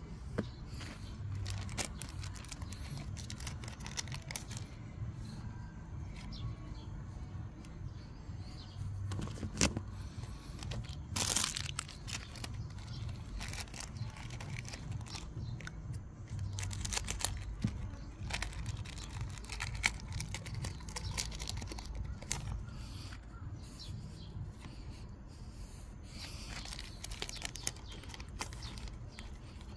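Pokémon card booster-pack foil wrappers being torn open and crinkled, and cards being handled: irregular rustling and small clicks, with louder tearing bursts about eleven seconds in and again near the end.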